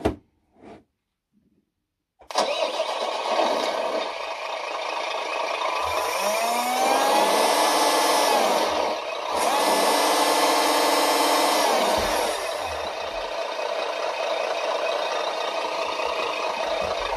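RC truck sound module playing a simulated truck engine through its small speaker: it starts up about two seconds in, idles, revs up twice with a short dip between, then settles back to idle.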